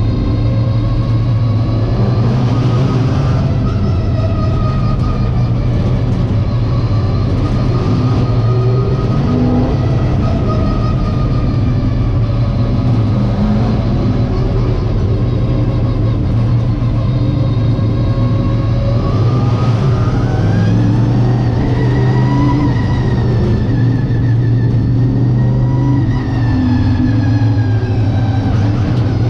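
Late model stock car's V8 engine running hard under race load, heard from inside the car. Its note rises and falls repeatedly as the car accelerates and eases off around the track.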